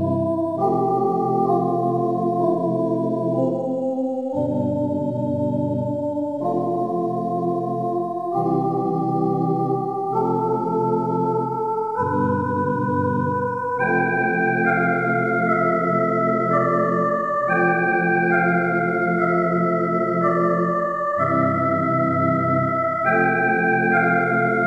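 Background music: an organ playing slow, sustained chords that change about every two seconds, with a melody stepping up and down above them.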